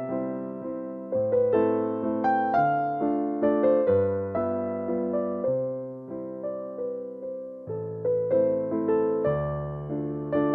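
Background music: a gentle electric piano melody with bass notes, played at an unhurried pace.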